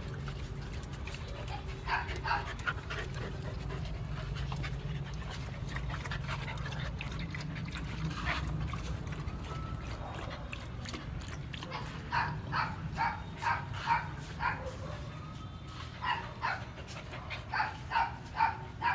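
Samoyed dog whining in series of short, high yelps: a few about two seconds in, then many more in quick runs through the second half. A steady low hum runs underneath.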